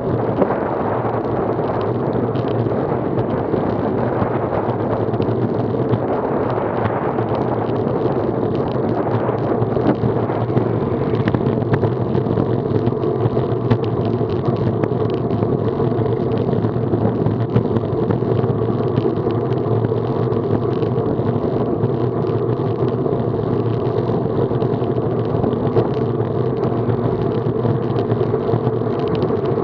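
Steady rush of wind and tyre noise from riding a road bicycle at speed, picked up as rumble on a bike-mounted action camera's microphone, with a low steady hum underneath.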